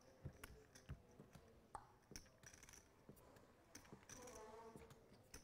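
Near silence with faint, scattered clicks of poker chips being handled at the table, and a brief faint voice a little after four seconds in.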